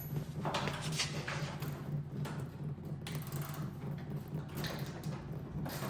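Hand work at a car's coolant cap: several short scrapes and clicks over a steady low hum.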